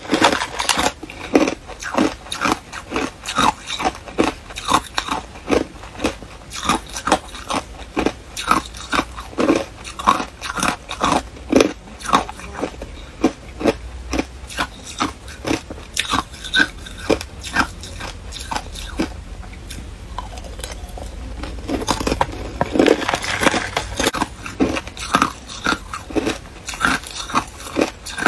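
Hard clear ice being bitten and crunched between the teeth: a run of sharp cracks, about two a second, thinning out briefly about two-thirds of the way through.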